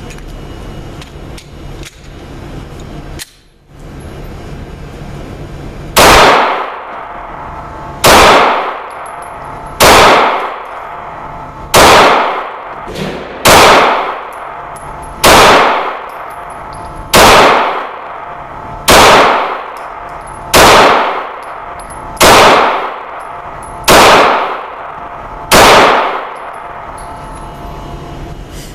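Glock 19 9mm pistol firing twelve slow, evenly paced shots about two seconds apart. Each sharp report is followed by a short reverberant tail in the indoor range. A steady background hum comes before the first shot.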